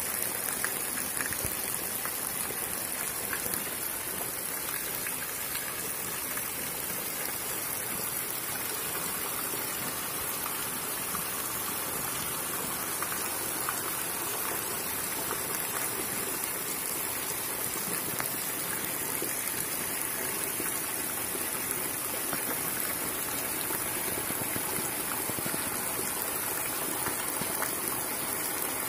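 Steady rain falling on wet ground and puddles.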